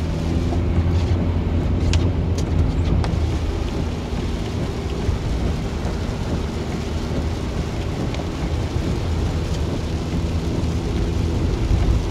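Inside a car driving on a wet road in rain: a steady low engine and tyre hum with rain on the windshield, and a few sharp taps in the first three seconds.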